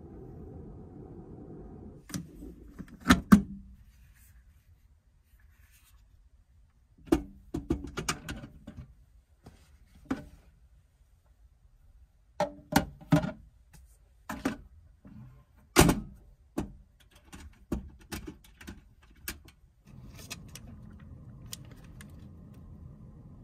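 Small metal in-room safe being handled: its door swung open and shut and its lock worked, giving a scatter of sharp metallic clicks and knocks, the loudest about three seconds in and again past the middle. A low steady hum is heard at the start and again near the end.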